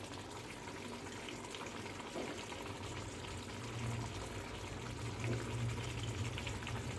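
Mutton curry bubbling and sizzling in a pan as its stock boils down, a steady crackling hiss with a low hum underneath that grows stronger in the second half.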